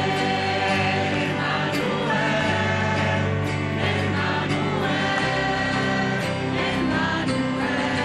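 Music: a choir singing a slow, sustained song over steady low accompaniment.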